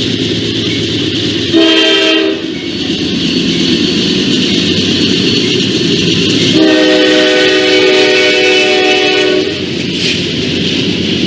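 A train horn sounds several notes at once, first in a short blast and then in a long blast near the middle, over the steady rumble and clatter of a passing train.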